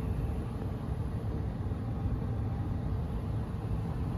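Steady low rumble of a gas furnace's blower running for the air conditioning, moving air through the supply plenum and ductwork, with a faint steady hum on top.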